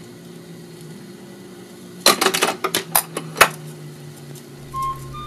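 RCA Victor 9-JY 45 rpm record changer cycling between records: a steady motor hum, then a quick cluster of sharp clacks about two seconds in as the next record drops from the spindle onto the platter and the tonearm mechanism resets. Near the end the needle is in the groove and music starts with a rising run of high whistle-like notes.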